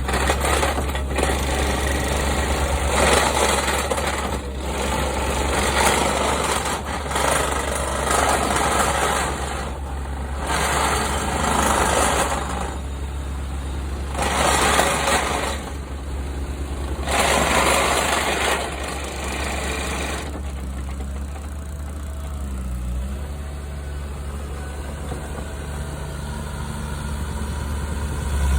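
Mini excavator's engine running while its vibratory compactor attachment packs backfill dirt in repeated loud surges; about twenty seconds in the compacting stops and the engine drones on steadily at idle.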